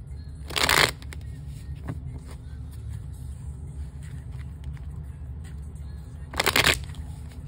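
A tarot deck being shuffled by hand: two short rushes of cards sliding and slapping together, one about half a second in and one near the end, over a steady low hum.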